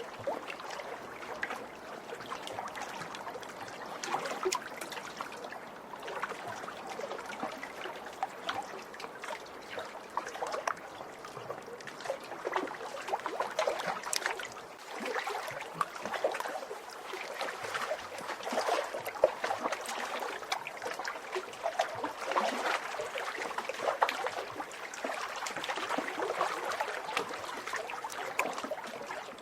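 Small lake waves splashing and lapping, with many irregular little splashes and trickles over a steady wash of water.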